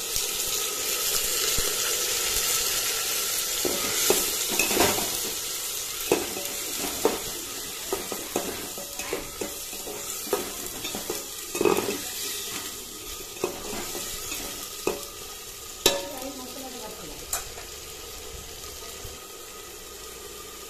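Onion paste sizzling as it fries in hot oil in an aluminium pot, while a metal ladle stirs it, scraping and knocking against the pot. The sizzle is loudest at first and dies down gradually.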